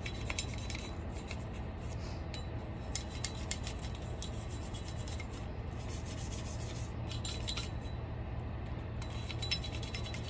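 A bristle brush scrubbing the inside of a Glock 21's steel slide in bursts of quick scratchy strokes, with short pauses between them.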